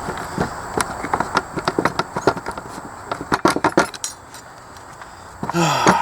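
Metal tools and chainsaw parts clinking and rattling in quick, irregular clicks and knocks while the old Homelite 350 saw is being taken apart by hand, then a quieter pause and a short pitched sound near the end.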